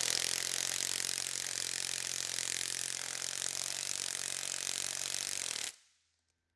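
Cordless impact driver running steadily, spinning a socket on a bolt to draw up and bulge a rivet nut (nutsert); it stops abruptly near the end.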